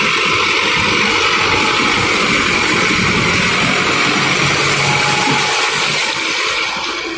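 Mahindra Arjun Novo 755 DI 4WD tractor running under load while its rear rotavator churns through flooded paddy mud during puddling: a steady rushing noise over the engine hum, easing off slightly near the end as the tractor turns away.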